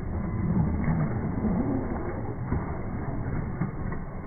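Low, muffled rumble of 1/10-scale electric RC crawler trucks driving through a shallow rocky creek. A wavering low whine runs from about half a second in to about a second and a half.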